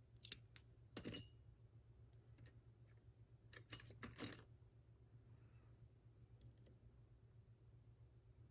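Sharp metallic clicks and taps of lock-picking tools working the pins of a Mul-T-Lock C-Series padlock: a couple about a second in, a tighter cluster near four seconds in, and a faint one later.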